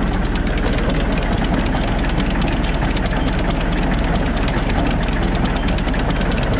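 Massey Ferguson 35 tractor's diesel engine running steadily at about 700 rpm with the PTO engaged and turning, a fast, even beat running through the sound.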